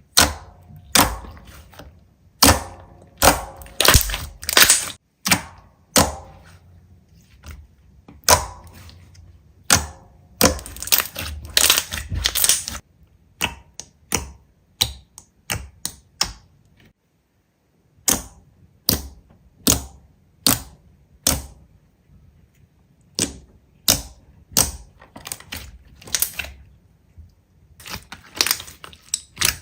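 Slime being squeezed and poked, giving a loud, irregular run of sharp pops and clicks, some in quick clusters, with a brief pause a little past halfway.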